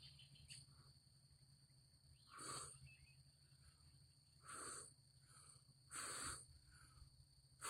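Three short puffs of a person's breath about two seconds apart, with a fourth beginning at the very end.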